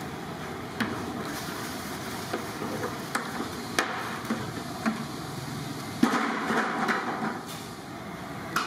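Steel cooking pots knocking and clanking a few times over a steady background of wood fires and boiling water. The loudest knock comes about six seconds in, followed by a brief rush of noise as the rice goes into the boiling pot.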